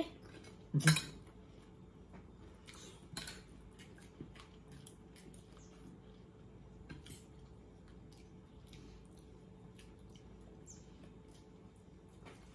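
Forks and spoons clicking lightly against plates and bowls during a meal, with scattered short clinks and eating noises; one louder sound about a second in.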